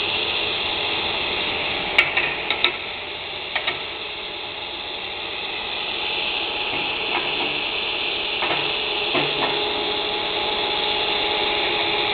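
Hobart plasma cutter's hand torch hissing steadily as its arc cuts a round hole through steel plate, the torch swung around on a circle-cutting jig. A few sharp clicks come about two to four seconds in.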